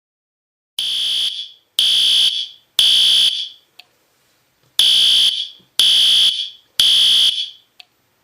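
Fire alarm horn sounding the three-pulse evacuation pattern, set off by a pulled fire-alarm pull station. It starts about a second in with three loud, high, shrill blasts a second apart, pauses, then gives three more.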